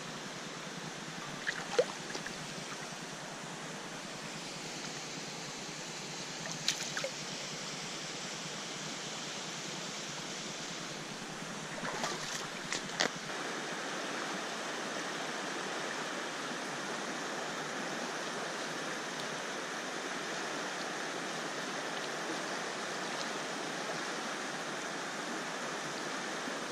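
A shallow, rocky trout stream running steadily over stones and riffles. A few sharp taps break through, about two seconds in, near seven seconds, and a small cluster about twelve to thirteen seconds in.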